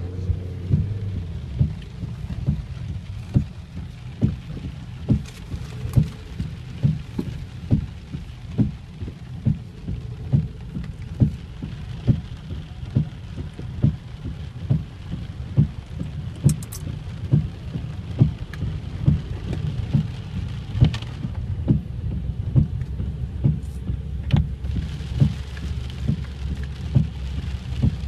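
Heavy rain pouring down steadily, with a low thump repeating about twice a second.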